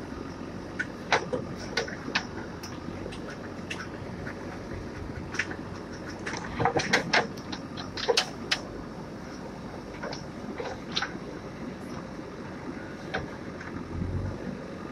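JCB digger's diesel engine running steadily while its bucket digs out a tree root, with irregular sharp cracks and knocks from the bucket tearing through roots and earth, thickest a little past the middle.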